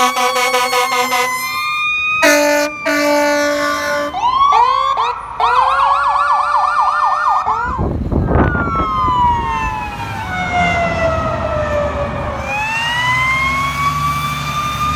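Fire apparatus responding with sirens and air horn: a rapid pulsing siren tone, a steady air-horn blast, then a fast yelp, a short loud blast, and a slow wail that falls and rises again.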